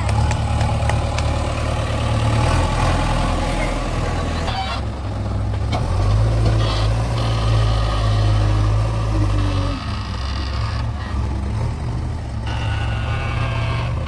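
Diesel engine of a JCB 3DX backhoe loader running, a steady low drone whose pitch and level shift a few times as the machine drives and works its loader.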